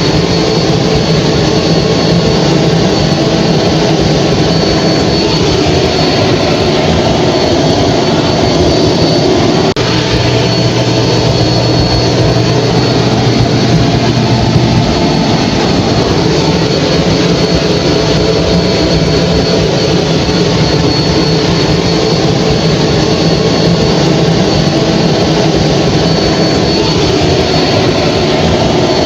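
Hair dryer running steadily: an even, loud rush of blown air over a motor hum, with a thin high whine on top.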